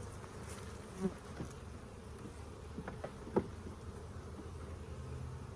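Honeybees buzzing around an open hive: a steady hum of many bees, with single bees buzzing close past several times.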